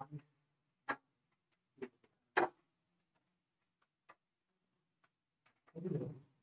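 Marker pen striking and sliding on a whiteboard as arrows are drawn: four or five short, sharp strokes at uneven intervals, the loudest about two and a half seconds in.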